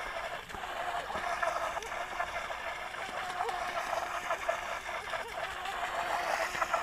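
Small RC speedboat's water-cooled brushless inrunner motor whining steadily at speed, its pitch wavering slightly, over the hiss and splash of the hull and prop spray cutting through the water.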